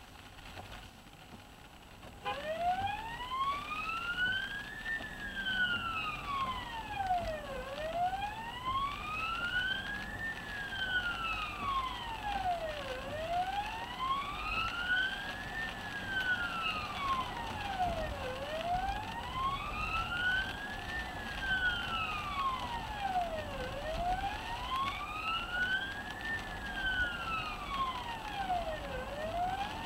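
Emergency siren of a responding ambulance service vehicle, switched on about two seconds in and running in wail mode: a tone that slowly rises and falls, about five seconds per cycle, heard from inside the vehicle on a 999 call.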